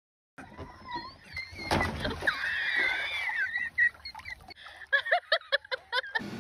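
A person's high, wavering voice, then a quick run of short laughs near the end.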